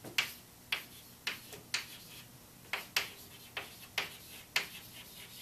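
Chalk writing on a chalkboard: about ten sharp taps and short scrapes as the chalk strikes the board, unevenly spaced at roughly two a second.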